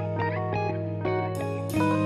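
Background music: plucked guitar notes, several a second, ringing over a steady low bass tone.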